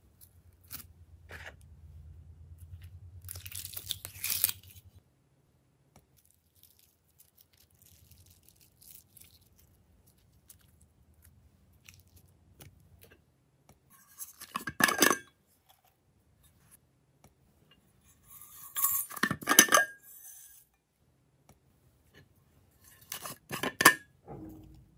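Glossy slime squelching as hands squeeze and pull it apart in a glass tray, in four short bursts with quiet stretches between.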